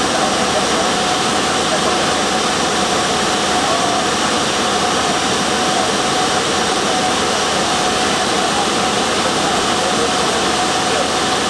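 TAI CHAN PSN double-clamper computer panel saw running: a loud, steady machine noise with a faint steady whine, no separate cuts or knocks standing out.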